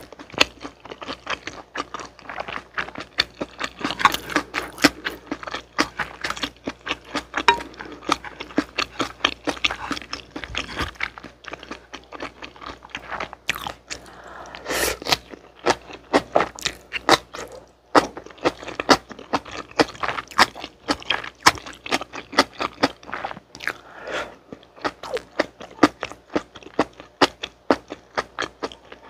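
Close-miked chewing and crunching of spicy jjolmyeon: chewy noodles with raw shredded carrot, cucumber and cabbage, with dense irregular wet clicks throughout.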